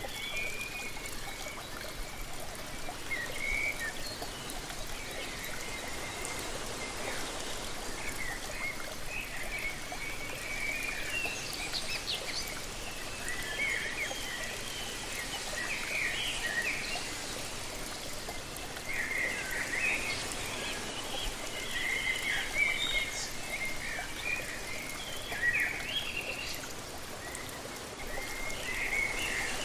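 Steady rush of falling water from a waterfall, with small birds chirping over it in clusters of short, high calls.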